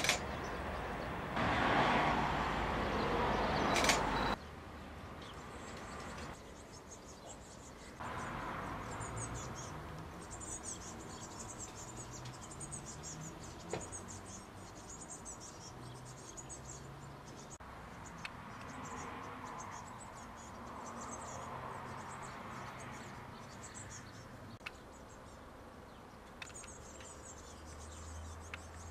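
Blue tits giving thin, very high-pitched calls, short chirps repeated in runs through most of the stretch. It opens with a louder rushing noise for about four seconds that cuts off abruptly.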